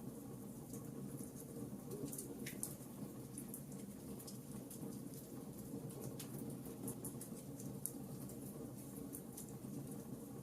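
Wood fire crackling in a fireplace: many small irregular crackles and pops over a steady low rumble, with a slightly louder pop about two and a half seconds in.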